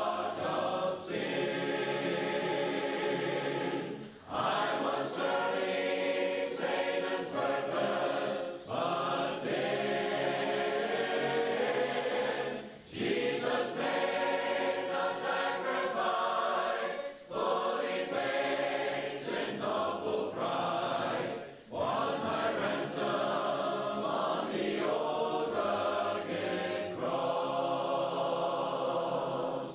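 Church congregation of men and women singing a hymn together, unaccompanied, in long phrases with brief pauses for breath between them.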